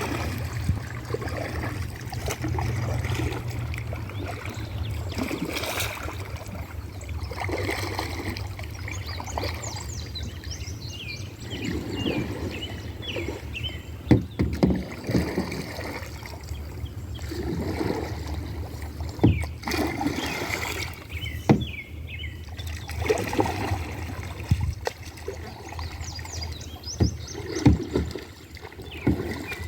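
Small boat being paddled on water: water sloshing and splashing in uneven surges, with several sharp knocks against the boat and a steady low rumble underneath.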